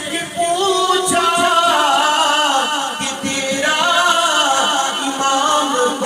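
A man's voice singing an Urdu manqabat in praise of Imam Husain, in long, wavering held notes.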